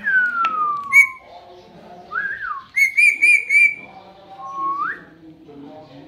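Indian ringneck parakeet whistling and calling: a long falling whistle, a short rise-and-fall whistle, a quick run of four sharp calls about three seconds in, then a rising whistle near the end.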